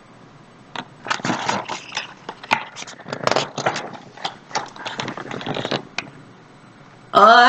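Pages of a picture book being handled and turned: an irregular run of papery rustles, flaps and light taps lasting about five seconds.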